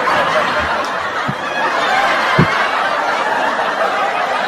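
Canned audience laughter, a laugh track of many people laughing together, greeting the punchline.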